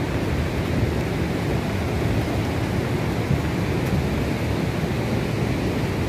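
Steady rushing of the Ganga (Bhagirathi) river running high and fast in flood.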